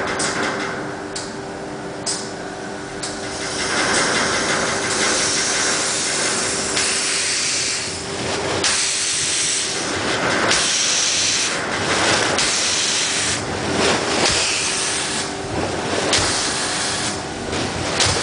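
Compressed air from a Pulsair mixing lance bursting up through the cap of fermenting red wine must: a rushing, frothing noise that surges and eases every second or two as the air pulses break the cap. The air is run at high pressure, around 80 to 90 psi.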